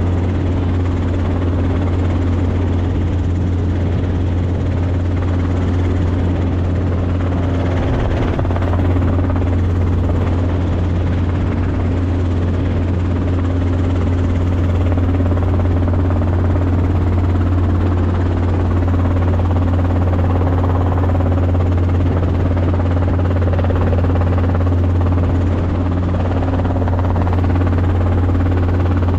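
Steady drone of a small helicopter in flight heard from inside the cockpit: a constant low hum of engine and rotor with a wash of noise over it.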